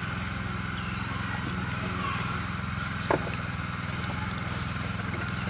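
A steady low mechanical hum over faint background hiss, with one short faint sound about three seconds in.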